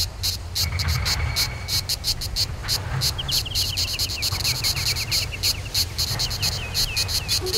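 Crickets chirping in an even, rapid rhythm of about five chirps a second over a low rumble. A bird gives a run of short, quick, falling notes twice, about three seconds in and again near the end.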